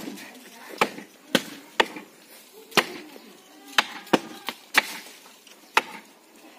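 Axes chopping into the base of a tree trunk: about ten sharp blows of steel on wood at uneven spacing, two choppers working the same notch in turn.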